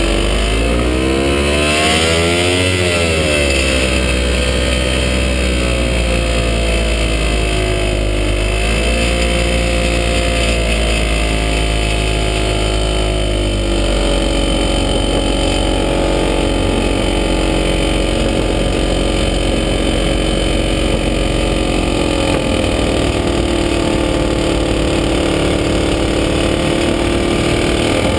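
Single-seat Falcon XP ultralight's engine running in flight, heard on board. Its pitch swings down and up over the first few seconds with throttle and manoeuvring, then drops about halfway through and runs lower and steadier.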